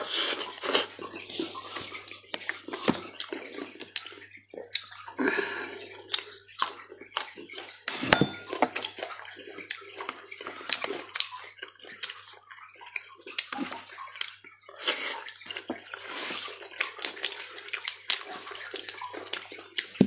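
Close-up wet chewing and lip-smacking of a person eating fatty cooked meat, with many irregular sharp clicks and squelches. Partway through, a knife cuts into the meat on a wooden board.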